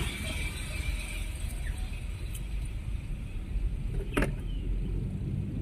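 Steady low rumble of a car driving at low speed, engine and tyre noise heard from inside the cabin. A single sharp knock comes about four seconds in.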